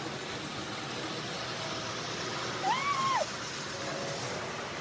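Model train running on its layout, a steady rolling hum. About three seconds in there is one short, high sound that rises and then falls.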